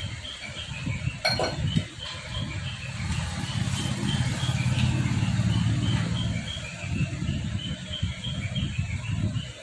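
A low rumble that swells in the middle, under a bird chirping over and over at an even pace. A single knock of metal parts being handled comes about a second in.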